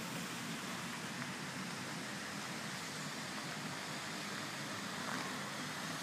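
Steady, even rushing of a waterfall, with no other distinct sounds.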